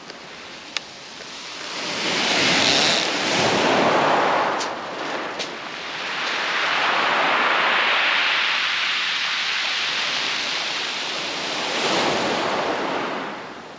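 Waves breaking and washing over a shingle beach, in three swells that rise and fall. There is a single sharp click about a second in.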